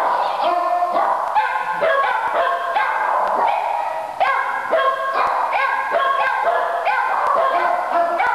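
Several dogs in shelter kennels barking and yapping at once, a continuous overlapping din of calls.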